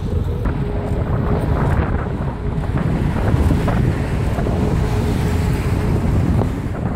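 Wind buffeting a moving microphone: a loud, steady low rumble.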